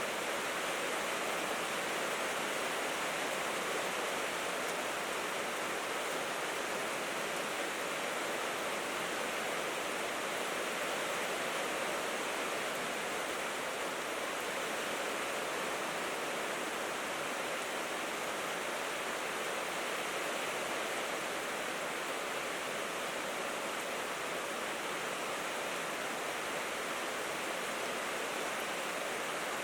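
Steady rain falling on a tin roof: an even, unbroken hiss with no single drops standing out.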